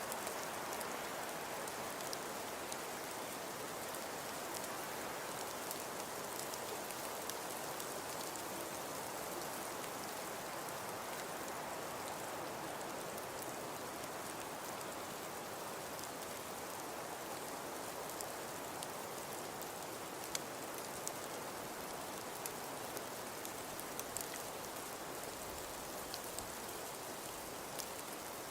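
Snowfall ambience: a steady soft hiss with scattered light ticks, much like light rain or sleet on a surface.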